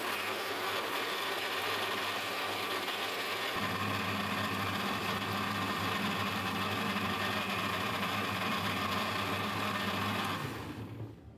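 Electric blender running steadily, grinding soaked dried plums, tamarind and dried apricots with water into a thick pulp. A deeper hum joins about three and a half seconds in, and the motor winds down near the end.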